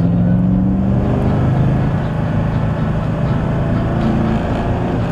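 Supercharged 5.4-litre V8 of a 2009 Ford Shelby GT500 pulling under acceleration, heard from inside the cabin over road noise. Its steady note near the start breaks up into a rougher sound about a second in.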